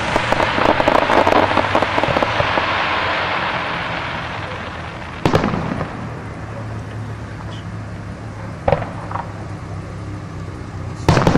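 Aerial fireworks. A shell burst crackles densely for the first few seconds and fades, then a sharp bang comes about five seconds in, a smaller pop near nine seconds, and another bang near the end.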